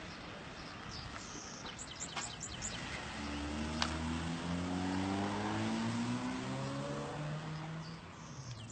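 A car's engine running close by, its pitch slowly rising as it accelerates for a few seconds, with a few short high chirps shortly before.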